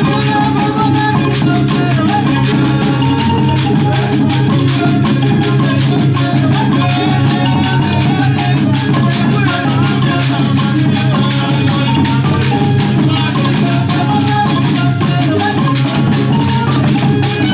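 Ugandan traditional music played live on drums with rattles or shakers: a fast, steady percussion pulse with short pitched melodic notes over it, continuing unbroken.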